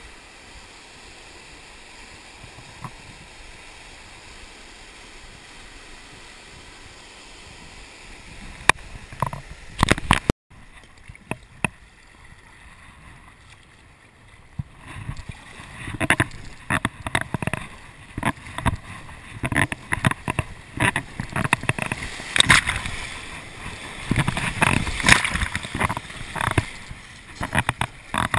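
Steady rush of whitewater rapids. About ten seconds in it breaks off and is followed by kayak paddle strokes and irregular water splashing against the boat, which grow louder as the kayak runs into a rapid.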